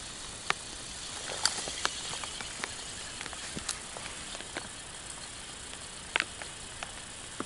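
Irregular light clicks and taps, roughly one a second, the loudest a double click about six seconds in, over a steady faint hiss.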